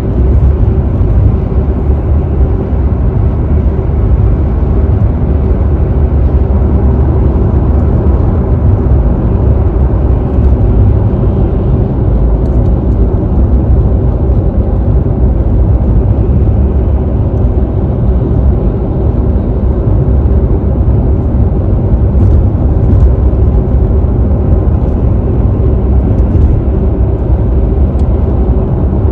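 Steady low rumble of a car travelling at freeway speed: tyre and road noise with a droning engine, muffled as heard from inside the cabin.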